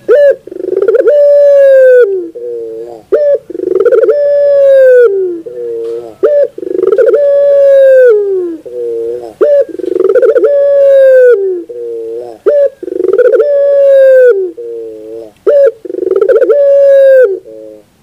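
Puter pelung, a domestic ringneck dove kept for its long coo, cooing over and over: about six calls, one every three seconds or so. Each is a short opening note, a long held note that falls away at its end, then a lower wavering note.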